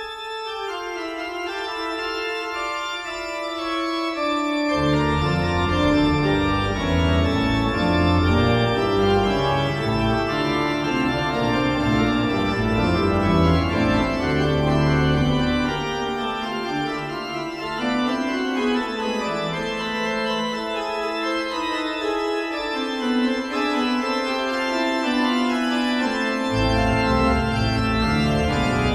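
Pipe organ playing slow, sustained chords. Low bass notes come in about five seconds in, drop out for a stretch later on, and return near the end.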